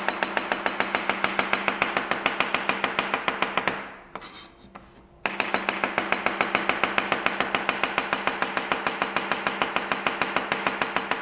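Knife chopping a seeded European cucumber into half-moon slices: a fast, even rhythm of about five cuts a second, pausing for about a second and a half partway through.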